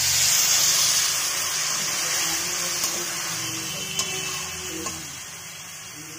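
Water poured into a hot kadai of fried eggs and potatoes in oily, cooked-down spice paste, sizzling and hissing as it hits the hot oil. The hiss is loudest at the start and dies down over several seconds, with a couple of light taps of the metal spoon against the pan.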